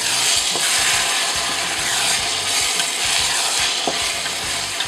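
Diced vegetables and tomato sauce sizzling in olive oil in a stainless steel pot while a wooden spoon stirs them, with two light knocks, about half a second in and near the end.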